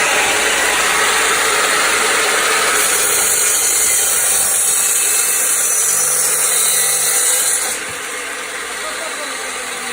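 Electric power tool running and cutting timber, a loud steady whirring noise that gets quieter about eight seconds in.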